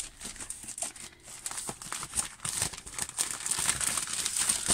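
Plastic poly mailer bag crinkling and rustling in irregular crackles as hands pull its cut opening apart.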